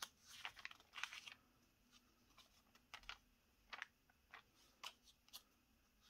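Faint paper handling as a planner's pages are turned and smoothed: a couple of soft rustles in the first second or so, then a few scattered light ticks.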